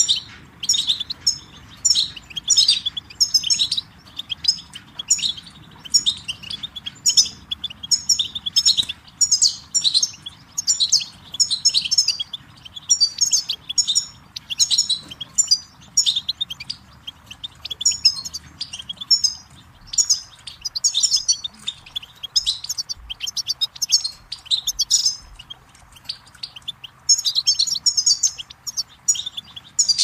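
European goldfinch song: quick, bright twittering phrases repeated over and over with short breaks.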